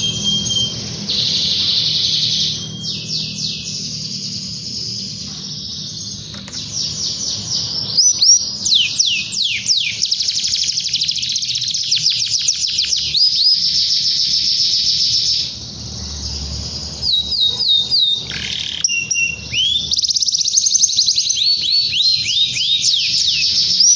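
Domestic canary singing a long, nearly unbroken song of fast rolling trills and rapid runs of repeated notes that sweep down in pitch, with a short dip in loudness about two-thirds of the way through.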